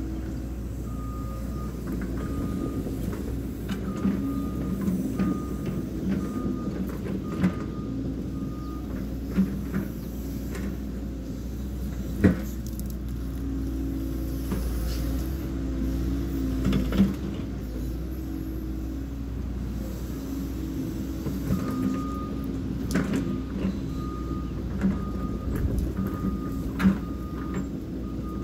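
Caterpillar 314 excavator's diesel engine running steadily while it works, its travel alarm beeping about one and a half times a second in two stretches as the machine tracks, early on and again from about two-thirds of the way in. Scattered sharp knocks and cracks come from the bucket and thumb handling brush, the loudest about halfway through.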